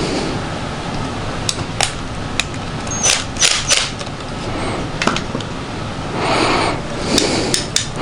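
Small metal clicks and taps as the cleaned mower carburetor's fuel bowl is fitted back on by hand, with a short rustle about six seconds in, over a steady background hum.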